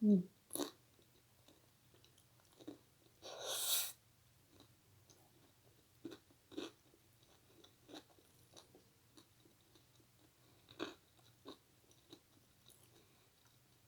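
Close-miked chewing of a mouthful of food, with scattered soft wet mouth clicks and one brief louder crunchy burst about three seconds in.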